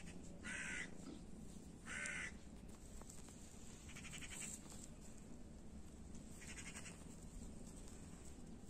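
Four short animal calls, spaced a second or two apart, the second one the loudest.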